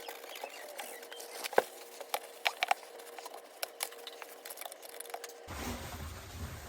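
Faint scattered clicks and light handling noises of towels wiping around inside a dishwasher tub, over a faint steady hum. About five and a half seconds in, the background changes abruptly to a low rumble.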